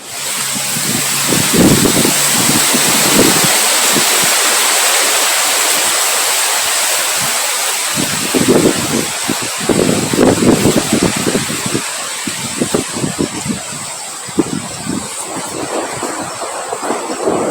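Rain and wind: a steady hiss that starts abruptly, with gusts swelling and rumbling low on the microphone, most strongly about a second and a half in and again from about eight seconds on.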